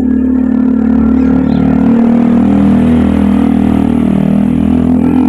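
A small petrol engine running close by at a steady speed, a loud even drone that rises in about the first second.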